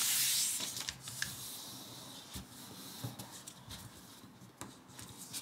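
Sheet of origami paper rustling for about a second as it is lifted and folded backwards, then softer scraping and faint taps as the fold is pressed flat against the table.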